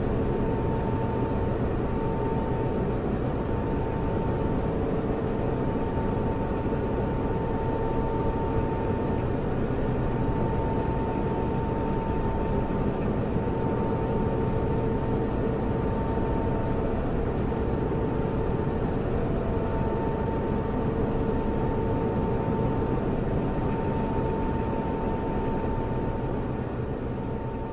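Computer server running: a steady rush of cooling-fan noise with a steady whine on top, starting to fade out near the end.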